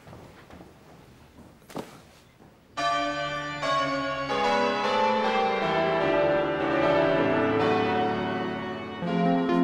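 A few faint footsteps, then about three seconds in bells start ringing suddenly: many overlapping ringing tones whose pitches change every half second or so, carrying on loud to the end.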